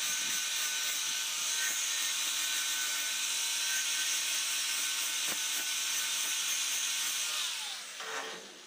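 Electric angle grinder with a thin cut-off disc cutting into a round metal pipe: a steady high motor whine over a grinding hiss. About a second before the end it is switched off and the whine falls away as the disc spins down.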